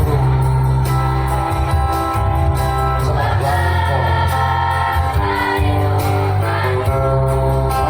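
A school choir singing in unison over an instrumental accompaniment with sustained low bass notes that change every second or two.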